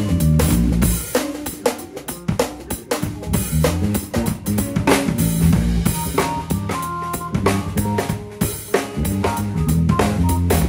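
Drum kit played live in a band: a steady beat of kick drum, cymbals and a 3D-printed 14x4 aluminium-look snare, over held bass notes and other pitched instruments.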